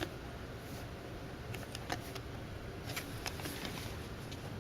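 Trading cards being handled: a few faint, scattered clicks and slides of card against card, over a low steady hum.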